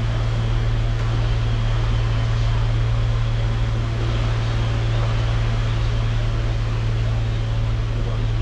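A steady, unchanging low mechanical hum with a constant hiss over it, like a motor or fan running.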